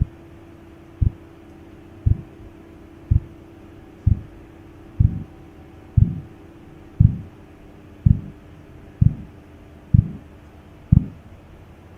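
Korotkoff sounds heard through a stethoscope under a deflating blood-pressure cuff: regular pulse thumps about once a second, the blood flow through the partly compressed artery between systolic and diastolic pressure. In the middle stretch each thump carries a short swishing tail, and a steady low hum runs underneath.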